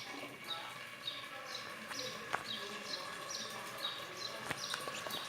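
A small bird chirping over and over: short, high, falling chirps, two to three a second. A few sharp clicks sound among them.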